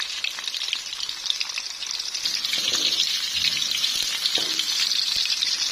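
Garlic cloves and shallots frying in hot oil in a wok: a steady sizzle with fine crackling. About halfway through, a metal spatula stirs them, scraping the pan.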